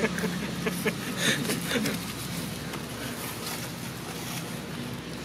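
Outdoor background sound: muffled voices talking with a few light clicks in the first couple of seconds, then a steady low hum.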